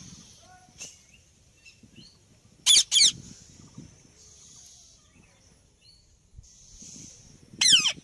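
Indian ringneck parakeet giving loud, harsh screeching calls: two in quick succession a few seconds in, and a third near the end that falls in pitch.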